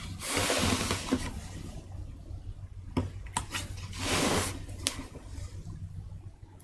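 Wooden carving block being shifted and turned on the workbench: two scraping swishes, the second about four seconds in, with a few light knocks of wood and knife between them, over a steady low hum.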